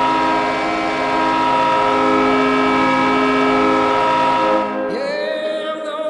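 Henderson Silver Knights hockey goal horn blaring a steady multi-tone chord, cutting off about four and a half seconds in as music starts.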